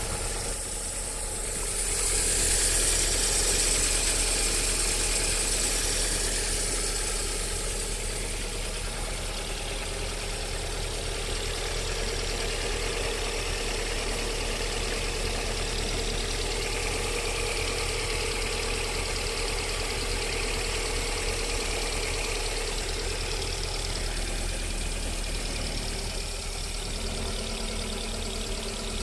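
Lada VAZ-21127 1.6-litre 16-valve four-cylinder engine idling cold with a knock, a knock that is heard only during warm-up below about 40 °C and whose cause the owner does not know. It runs a little louder for a few seconds near the start.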